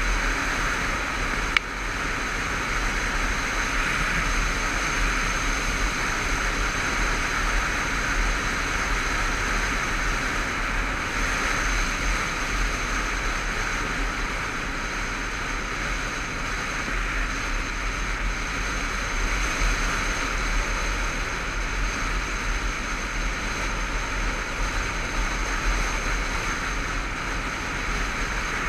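Steady wind rush over a helmet-mounted camera on a motorcycle riding at road speed, with the engine running beneath it. A single sharp click about a second and a half in.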